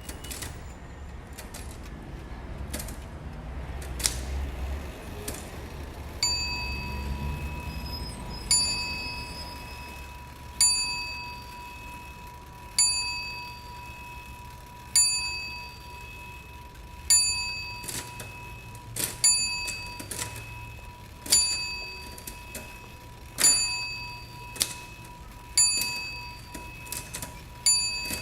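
A small bell dinging about every two seconds, each ding a sharp strike with a short ring, over a steady high tone that starts about six seconds in; a few extra clicks fall between some of the dings.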